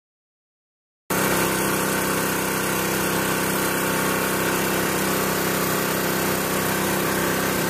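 Hotsy hot-water pressure washer running steadily, a constant mechanical drone that cuts in about a second in.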